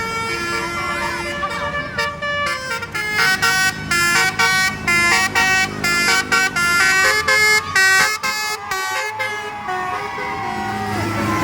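Basuri telolet multi-tone bus horn playing a tune: a few held notes at first, then from about three seconds in a fast run of short notes jumping between pitches, which stops about nine seconds in.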